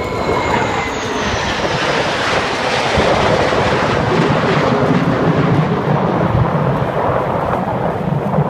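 Jet noise from a formation of six F-16 Fighting Falcons passing overhead and pulling up: a loud, steady roar, with a high whine that falls in pitch over the first couple of seconds as they go by.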